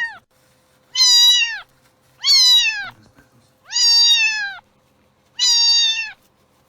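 Domestic cat meowing over and over, four loud meows at an even pace of about one every second and a half, each dropping in pitch at its end.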